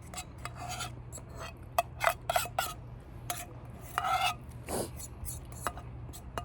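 Camp dishes and utensils being handled: a string of short clicks, clinks and brief scrapes, a few with a short ring, over a steady low hum.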